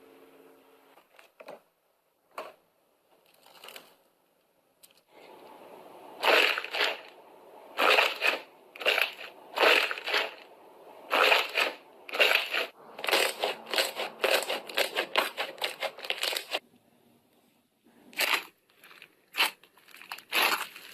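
Slime being squeezed and pressed by hand, crackling and crunching in repeated bursts that start about six seconds in and grow denser, stopping briefly near the end before starting again.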